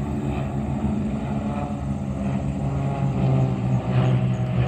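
Piston engines of a formation of propeller-driven airplanes flying over, a steady pitched drone that grows louder about three seconds in.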